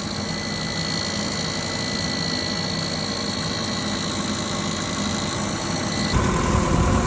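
2001 Subaru Outback engine idling with a steady high-pitched whine over it: the buzz the owner traces to a bad alternator. About six seconds in the whine cuts off and the engine sound changes.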